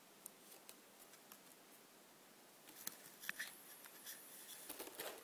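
Faint handling of board-game cards and plastic packaging: nearly quiet for the first couple of seconds, then from about two and a half seconds in a run of light clicks, taps and rustles.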